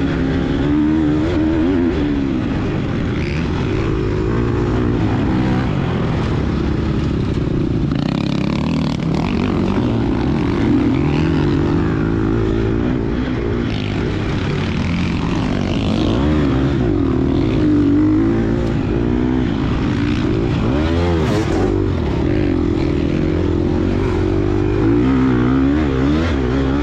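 2022 Gas Gas EX250F dirt bike's 250cc four-stroke single-cylinder engine being ridden, revving up and down continuously as the throttle is worked, its pitch rising and falling every second or two.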